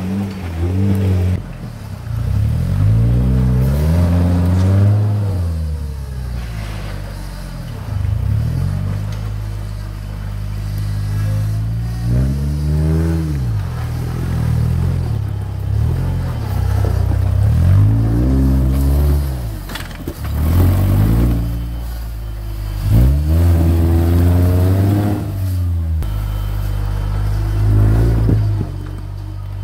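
Engines of modified off-road 4x4s running under load on a steep, rutted climb, revved up and let back down again and again, about seven or eight times, between stretches of lower running.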